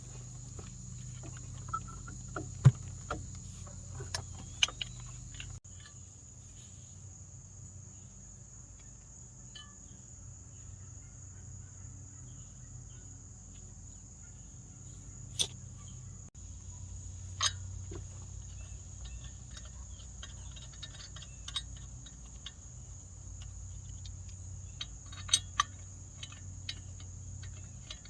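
Steady high chirring of crickets over a low hum, broken by scattered sharp clicks and knocks.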